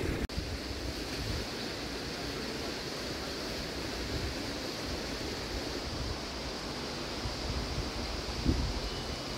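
Outdoor street ambience with wind buffeting the microphone in uneven low rumbles, and a single short thump about eight and a half seconds in.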